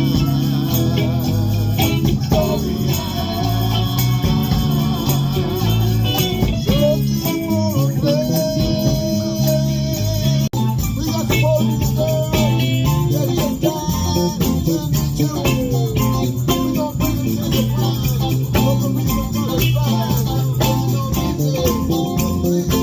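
A band playing live: a bass line and electric guitar under a steady jingling tambourine, with a sliding melodic line over the top. The music drops out for an instant about ten seconds in.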